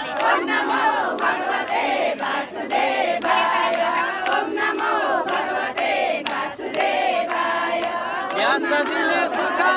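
A crowd of women chanting a devotional hymn together, many voices overlapping loudly.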